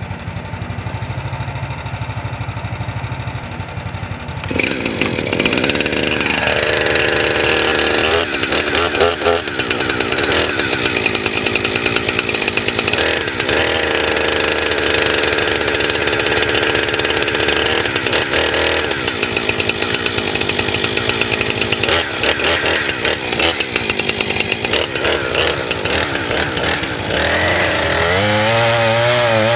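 Mini excavator engine idling, then a Husqvarna 460 Rancher two-stroke chainsaw starts about four and a half seconds in and runs, revving up and down. Near the end the saw's pitch rises and wavers under load as it bites into a tree stump.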